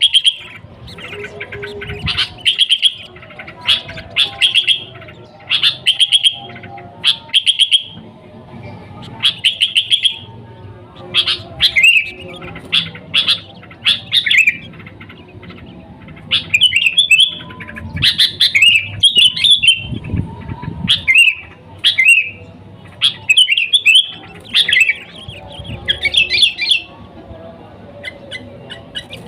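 Sooty-headed bulbul (kutilang) singing busily: a steady string of short, bright chirping phrases, about one a second.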